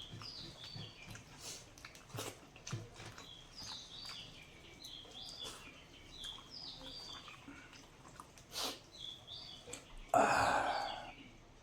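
Small birds chirping over and over in short falling notes, with scattered soft clicks and a louder noisy rustle about ten seconds in.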